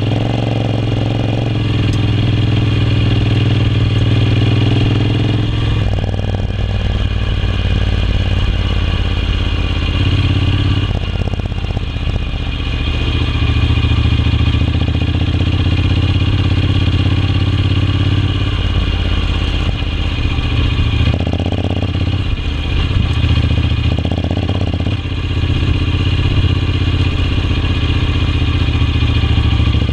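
Honda NC750X's parallel-twin engine running as the motorcycle rides through loose sand, the engine note rising and falling several times.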